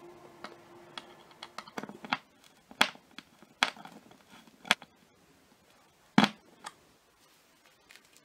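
Sharp, separate clicks and knocks of IKEA flat-pack parts, screws and a screwdriver handled against laminated particleboard panels during assembly, about seven in all, with the loudest knock about six seconds in.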